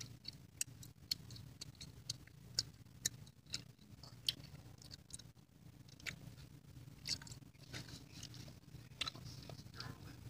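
Faint, irregular small clicks and wet mouth noises from fingers working at the mouth and teeth, over a low steady hum.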